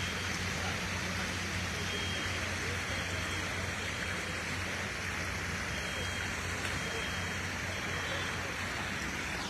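Steady rushing of overflowing river water, with a steady low engine drone underneath.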